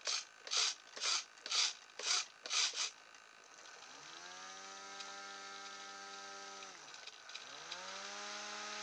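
A micro servo swings the fan boat's rudder back and forth, six short gear buzzes about half a second apart. Then the boat's small brushed quadcopter motor and propeller spin up to a steady whine, run for about three seconds, wind down, and spin up again near the end.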